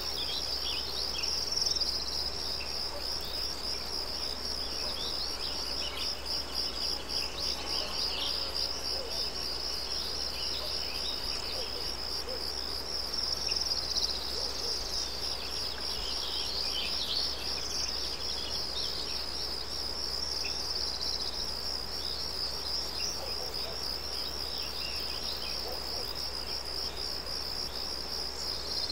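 A steady, high-pitched chirring of insects, pulsing rapidly without a break, with scattered short bird chirps over it.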